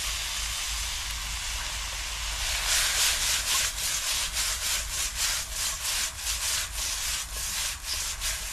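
Green peppers and tofu skin stir-frying in a frying pan, with oil sizzling steadily. From about two and a half seconds in, a spatula scrapes the pan in quick, even strokes, about three a second.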